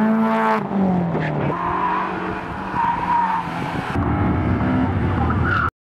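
Rally cars on a tight slalom course: engines revving hard, the pitch falling as one lifts off, and tyres squealing briefly through the turns. The sound shifts abruptly between cars and breaks off suddenly near the end.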